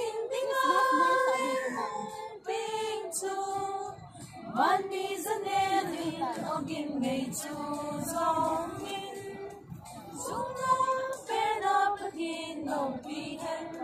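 A woman singing a song in held, sustained notes, breaking briefly for breath a couple of times.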